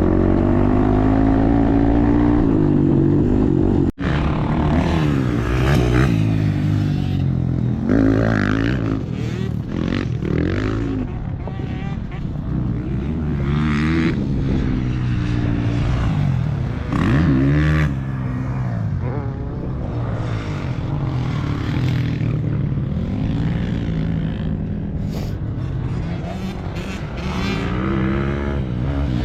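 Dirt bike engines revving up and down as the motocross bikes ride the track, pitch rising and falling again and again through the gears. A close, steady engine runs for the first few seconds, and the sound cuts out for an instant about four seconds in.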